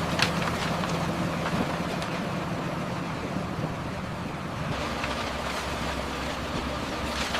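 Road-works machinery engine running steadily, a low hum under a noisy haze, with a brief sharp scrape or clack near the start and another near the end.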